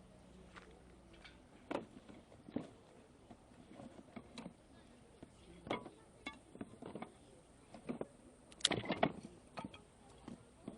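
Wood fire crackling in a small wood-burning stove: irregular sharp pops and snaps, with a louder cluster of pops about nine seconds in.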